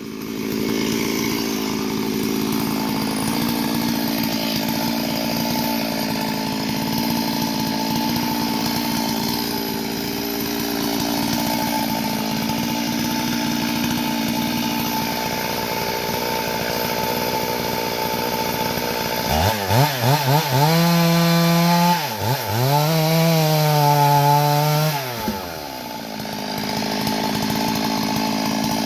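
Chainsaw engine running steadily at low speed, then revved up to high speed twice in quick succession about two-thirds of the way in, each time dropping back before settling again to low speed.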